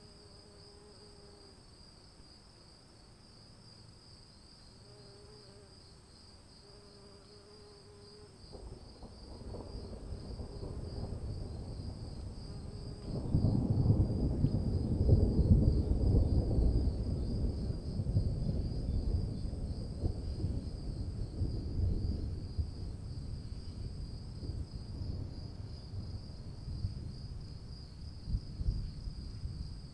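Insects chirring in a steady, fast-pulsing high-pitched drone. In the first eight seconds there are a few faint wavering animal calls. From about eight seconds in, a low rumbling noise builds up and is loudest for several seconds in the middle.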